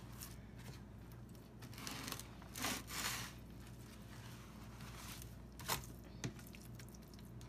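Faint rustling and soft handling noise as a seasoned raw pork loin is flipped over on paper towel, with the loudest rustle about three seconds in and two small knocks near the end.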